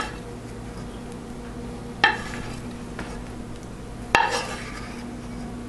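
Wooden spoon scraping the last of a thick pudding filling out of a tipped metal saucepan, with two sharp knocks of the spoon against the pan about two seconds apart. A steady low hum runs underneath.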